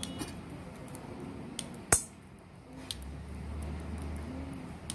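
Metal knitting needles clicking and tapping as wool is knitted, with one sharp click about two seconds in. A low hum comes in about three seconds in.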